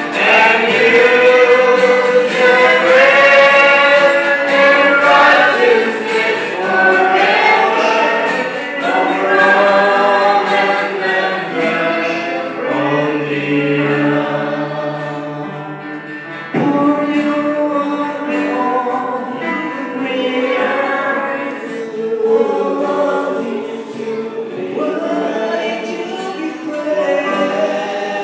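Congregation and worship team singing a gospel worship song together, with band accompaniment. The singing dips a little past halfway, then comes back in suddenly louder.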